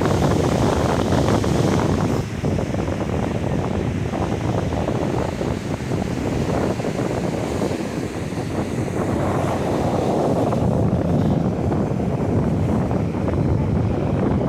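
Strong wind buffeting the microphone over the steady rush of ocean surf.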